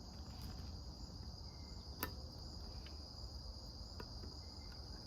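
Crickets trilling steadily in the background, with a few sharp metal clicks from a multitool can opener working on a tin can, the loudest about two seconds in and another near four seconds.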